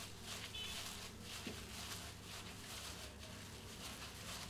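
Faint wet squishing of a gloved hand kneading raw mutton with oil and spice paste in a glass bowl, over a low steady hum.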